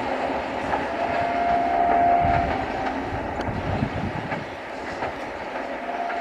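Electric multiple unit (EMU) train running along the track, wheels clicking over the rail joints, with a brief steady whine about a second in; the rumble fades after about four seconds as the train draws away.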